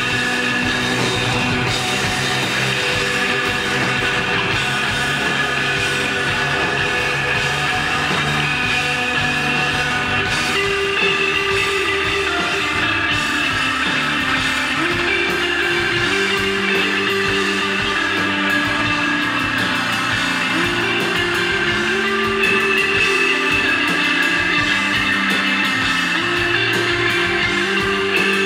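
Instrumental desert rock band playing live: electric guitar holding long, slowly moving notes over bass guitar and a drum kit with steady cymbal work.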